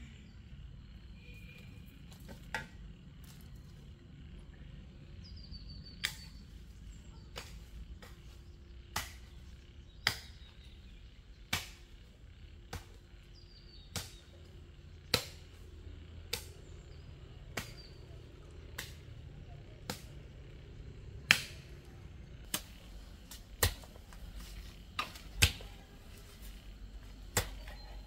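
A garden hoe striking into soil over and over, a sharp knock about every second and a quarter, starting a couple of seconds in. Faint bird chirps now and then.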